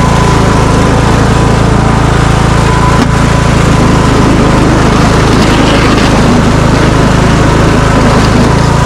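Small engine of a lawn mower converted into a snow plow, running steadily under load as its blade pushes snow and ice.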